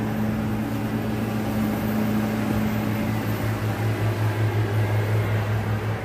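Steady low mechanical hum, like a motor or fan running, holding one low pitch without a break.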